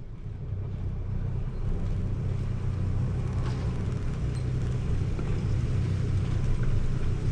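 Boat engine running steadily at slow speed, a low, even hum, as the boat idles in toward the dock.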